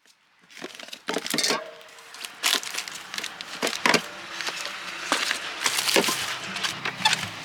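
A series of sharp, irregular cracks and clicks, with low steady music tones coming in near the end.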